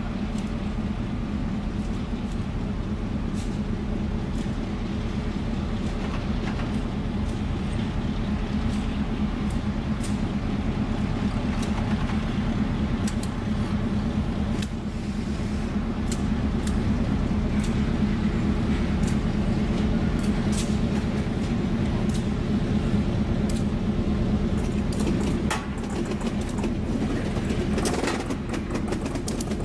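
Former Illinois Central EMD GP10 diesel locomotive moving slowly at low throttle, its engine drone steady, with scattered clicks and knocks from the train.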